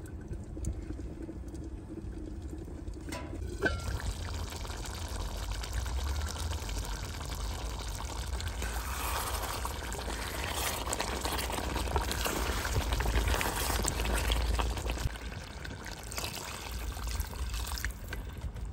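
Thick curry bubbling and simmering in an uncovered pot over a wood fire, with a wooden spoon stirring through it. A single knock about three and a half seconds in, then the bubbling hiss grows louder and eases off near the end, over a steady low rumble.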